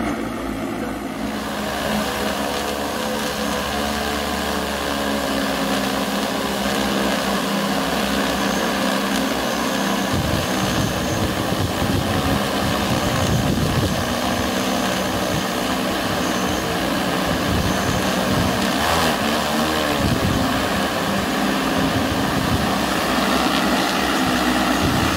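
DJI Agras T30 agricultural spraying drone in flight, its six rotors making a steady whirring drone. A low gusty rumble joins from about ten seconds in.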